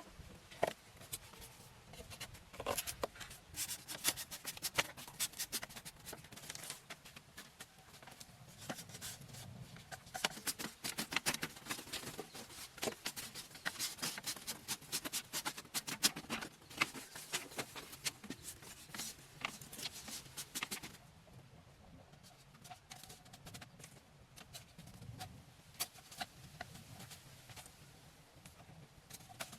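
Irregular run of crisp clicks, taps and rustles, dense for about twenty seconds and then thinning out.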